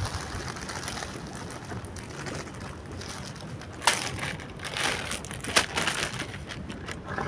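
Dry krill groundbait poured from its packet into a plastic bucket, then plastic bait packets crinkling and rustling as they are handled, with two sharp clicks partway through.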